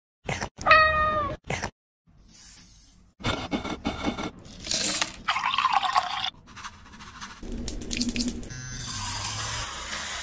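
A cat meows once about a second in, a short call that falls at its end. Then comes a run of noisy food-preparation sounds: clattering, hissing and water.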